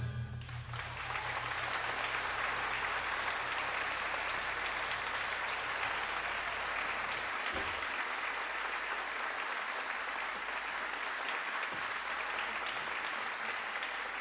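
Audience applauding steadily after a big band piece ends. A low hum underneath stops about halfway through.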